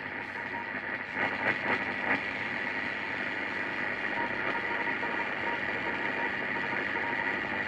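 Steady hiss and static from a radio receiver, with a few brief crackles about a second in.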